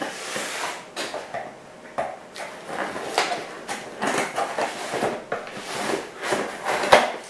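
Scissors cutting open a cardboard shipping box along its taped seam: irregular scraping and rustling of blade on tape and cardboard, broken by several sharp clicks, the loudest near the end.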